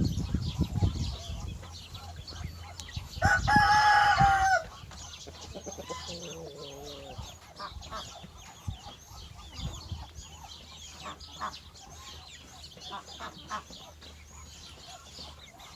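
Rooster crowing once, a short steady crow about three seconds in, among chickens clucking. A lower, falling call follows a few seconds later, with small chirps and clucks throughout.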